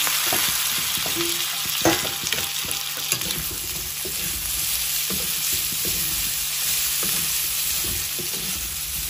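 Pieces of pork sizzling as they fry in oil with onions and ginger-garlic paste in a steel kadai, stirred and scraped with a flat spatula. The sizzle holds steady, broken by a few sharp knocks, the loudest about two seconds in.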